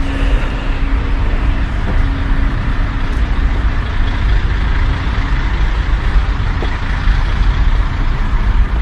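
Steady low rumble of lorry engines idling, with a steady hum over the first four seconds or so that then fades.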